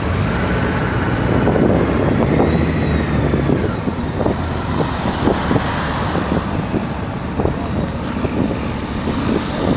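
Vehicle carrying the camera driving slowly, its engine running steadily under road and wind noise, with oncoming cars passing close by.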